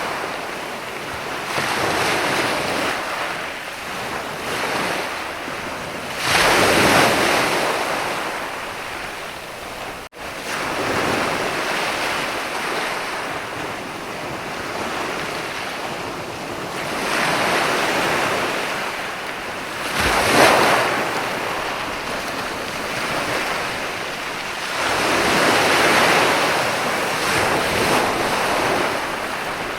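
Ocean surf washing in, with several waves swelling and breaking at uneven intervals; the sharpest crash comes about twenty seconds in. The sound cuts out for an instant about ten seconds in.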